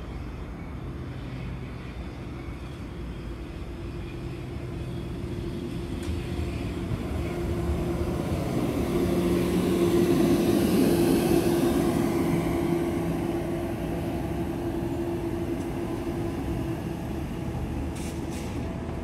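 A South Western Railway Class 701 Aventra electric multiple unit running into the platform: wheel-on-rail rumble with a steady whine, growing louder as the train approaches. It is loudest as the front cars pass about ten seconds in, then eases as the train slows along the platform.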